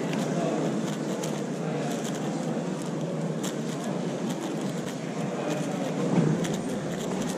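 Steady murmur of a crowded competition hall, with scattered faint clicks from a MoFangGe Shadow M 6x6 speedcube being turned.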